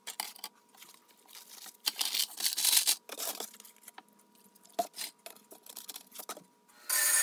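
Small rusty bolts, nuts and washers clinking into a plastic tub, then white vinegar poured over them from a plastic gallon jug and the jug's cap handled and screwed on: scattered clicks, plastic crinkles and a splashing pour, to soak the parts and remove the rust. Just before the end a bench grinder with a wire wheel starts running with a steady machine noise.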